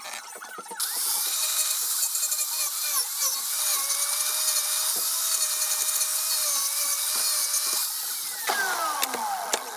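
Electric angle grinder switching on about a second in and running at a steady high whine as its disc works the walnut wood. Near the end it is switched off and winds down, its pitch falling.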